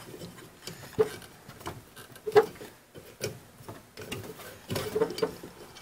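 A urethane band saw tire being stretched by hand onto the saw's lower wheel: scattered soft clicks and taps of rubber, wheel and housing, with a sharper knock about two and a half seconds in and a cluster of small sounds near the end.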